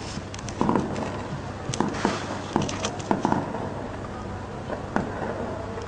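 Heavy gunfire: sharp shots in several quick strings during the first three seconds or so, then a single shot near the end.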